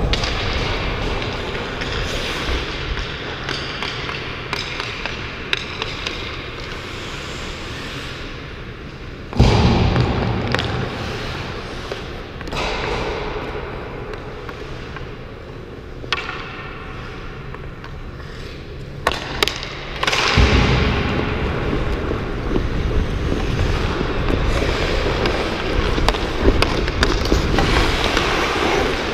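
Ice-hockey skates scraping and carving on rink ice, with sharp clicks and knocks from sticks and puck throughout. Louder rumbling stretches come about ten seconds in and again from about twenty seconds on.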